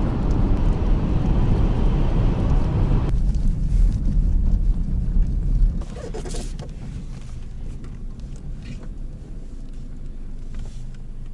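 Car on the move, with road and engine rumble heard from inside the cabin. The higher part of the noise cuts off abruptly about three seconds in. The whole rumble drops sharply about six seconds in, leaving a quieter low hum.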